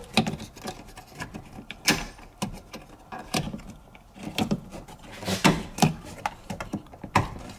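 Plastic ECU wiring-harness connectors being unlatched and pulled off by hand: scattered, irregular clicks, rattles and knocks of hard plastic, a few of them louder.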